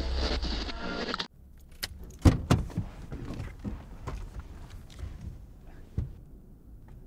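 A second of guitar music that cuts off abruptly, then small clicks and rattles inside a parked car as the driver's door is opened and the driver climbs out. The loudest are two sharp clicks about two and a half seconds in.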